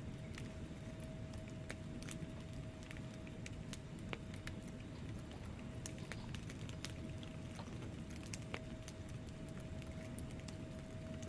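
Wood fire in a fireplace burning with a low steady rumble, with logs crackling in frequent irregular sharp pops and snaps.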